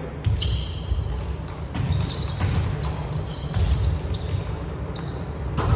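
Indoor volleyball play on a gym court: sneakers squeaking on the floor in short high chirps, with sharp ball hits about a third of a second in and again near the end.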